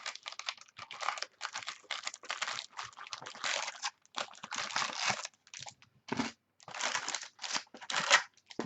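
Plastic wrapping on a sealed box of trading cards crinkling and tearing as it is unwrapped, in irregular rustling bursts with short pauses between them.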